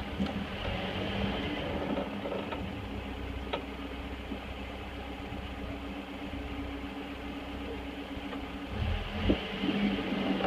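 Toyota 22R four-cylinder engine of a lifted 1985 pickup running steadily, with a low drone and a few light clicks, and a cluster of knocks about nine seconds in.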